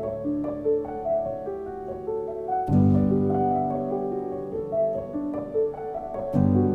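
Background music: piano playing a melody over sustained low strings, with the low chords coming in fresh about a third of the way in.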